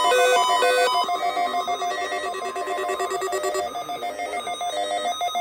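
Loud electronic ringing: several steady pitched tones trilling rapidly, switching between pitches in the first second, then pulsing on steadily.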